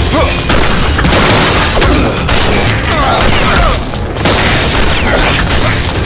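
Fight-scene sound effects: booming punches and hits layered over an action music score, with short grunts of effort.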